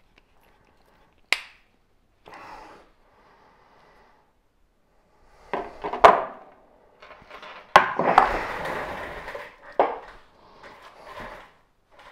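Small tools and knife parts being handled on a workbench: a sharp click about a second in, then several hard knocks and a stretch of scraping and rummaging.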